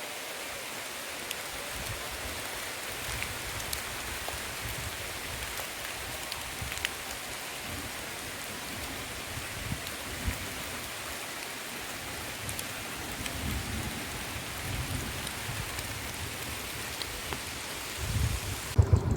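Steady hiss of rain with scattered faint drop ticks and irregular low rumbles. Near the end the hiss cuts off and a loud small engine starts running.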